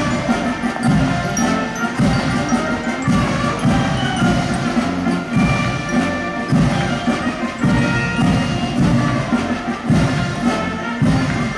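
Band music playing, with held notes over a regular beat of strong low notes.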